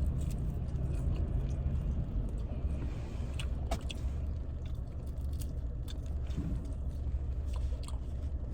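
Steady low rumble of a car idling, heard inside the cabin, with scattered small clicks and crunches of food being handled and chewed.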